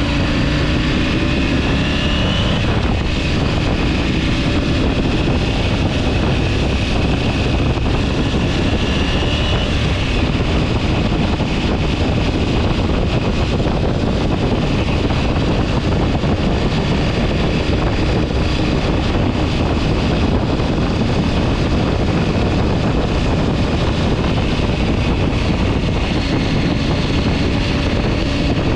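Steady loud rushing noise with a faint engine tone that drifts up and down, as from a moving vehicle with wind on the microphone.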